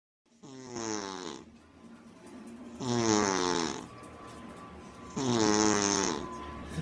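A sleeping woman snoring, three snores about two seconds apart, each falling in pitch with a breathy hiss.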